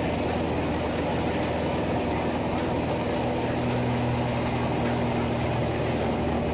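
Light aircraft's piston engine and propeller droning steadily, heard inside the cockpit, with a deeper hum growing louder about halfway through as the plane pitches up steeply into a loop.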